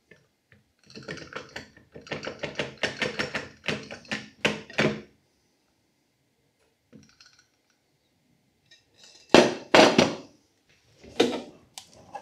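Wire whisks of a stand mixer handled at the glass mixing bowl: a rapid run of light clicks and taps for about four seconds, then several loud knocks later on.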